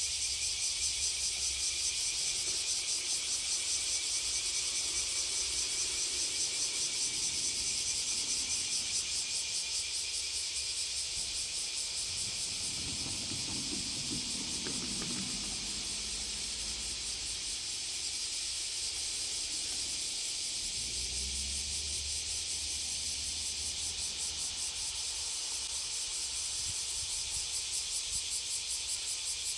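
Chorus of cicadas: a steady, shrill, rapidly pulsing drone. A faint low rumble comes and goes about halfway through.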